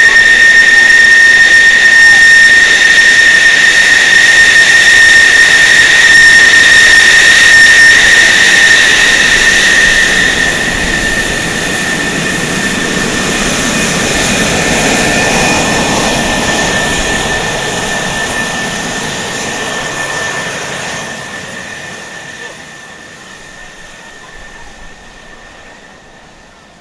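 F-14 Tomcat taxiing past on its twin jet engines: a loud, steady high whine over a rush of exhaust. A deeper rush swells about halfway through as it goes by, then the sound fades as the jet moves away.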